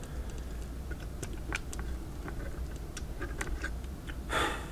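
Faint scattered ticks and crackles while a soldering iron melts solder onto a metal strip on a lithium-ion cell's terminal, with a short hiss near the end.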